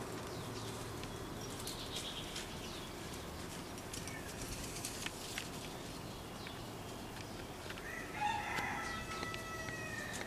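A rooster crowing once, about eight seconds in, for about two seconds, over a steady background hiss with scattered small clicks.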